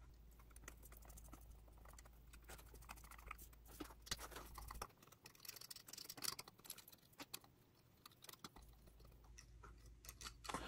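Faint, scattered small clicks and taps of a small screwdriver driving tiny screws back into a model locomotive and its plastic parts being handled.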